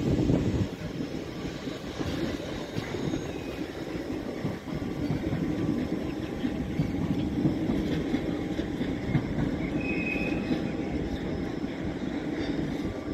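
Electric locomotive rolling slowly past, a steady low rumble of motors and wheels on the rails, louder for the first half-second. A brief high wheel squeal comes about ten seconds in.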